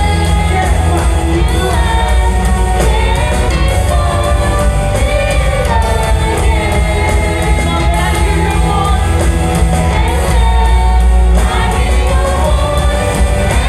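Live church worship band playing a praise song, with voices singing over a steady heavy bass.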